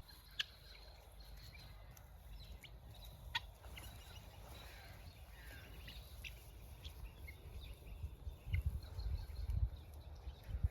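Domestic chickens clucking softly in scattered short calls, with a low rumble that swells near the end.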